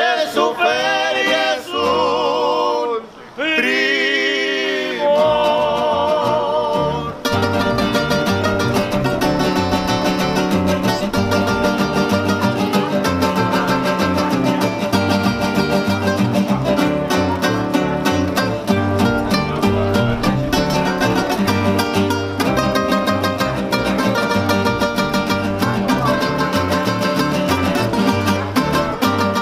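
Mexican string trio of guitar, small guitar and guitarrón playing. The first few seconds hold long sung notes with vibrato, then about seven seconds in the instruments take over with a brisk, even strummed rhythm over a plucked guitarrón bass line.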